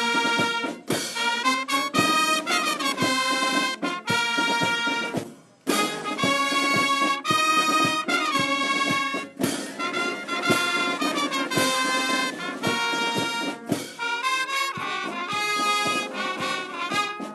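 Brass music with trumpets and trombones, in sharply played notes, breaking off briefly about five and a half seconds in before going on.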